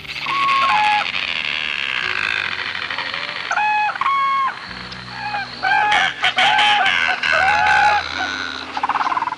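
Chickens calling: a run of short, loud, flat-pitched crowing and squawking calls from the flock, coming in bunches, with a steady hum of more birds behind them.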